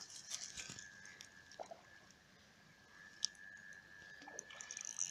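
Faint rustling and scratching of shirt fabric rubbing over a phone's microphone in a shirt pocket, with scattered small clicks. There is one sharp click about three seconds in and a louder rustle near the end.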